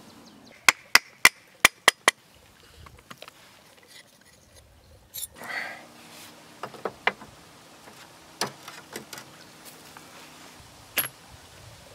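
A quick run of six sharp knocks, then a clatter and scattered clicks and knocks of hard stone on metal and wood as a whetstone is taken out of its metal clamp holder and another is set in. A last sharp knock comes near the end.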